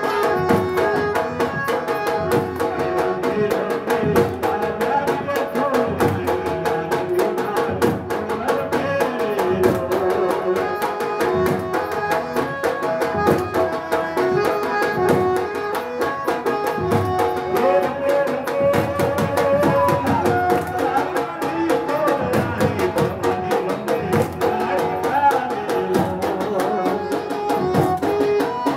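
Live Gujarati garba folk music: a harmonium plays a running melody in held notes over a fast, steady beat on a two-headed barrel drum.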